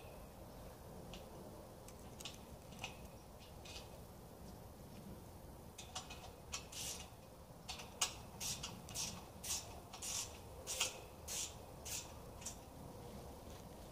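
Short clicking and scraping strokes of hand work on a corner-brace fitting at a steel greenhouse ground post. They come scattered at first, then in a run of about two a second from about six seconds in, stopping near the end.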